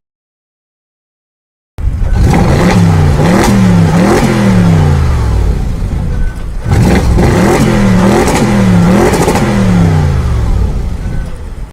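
Audi RS performance car engine revved hard in repeated quick blips, the pitch rising and falling again and again. It comes in two runs with a brief break between them.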